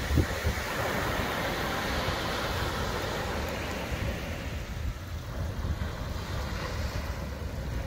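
Wind buffeting the microphone, with surf washing onto the beach. The hiss eases off about halfway through.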